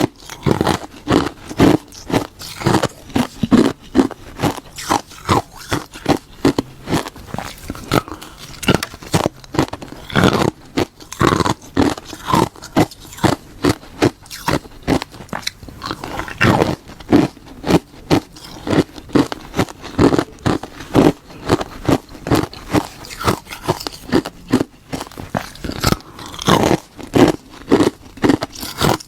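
A person biting and chewing hard, crunchy ice close to the microphone: crunch after crunch, roughly two a second.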